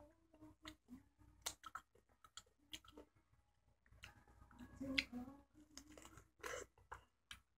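Faint, irregular wet clicks and smacks of a mouth chewing juicy peach, a few to the second.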